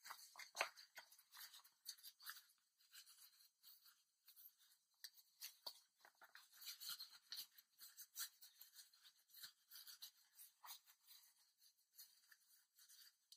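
Faint, irregular rustling and scratching of a cotton-and-PUL (laminated fabric) pad wrapper being handled and turned right side out, with its corners worked out by hand.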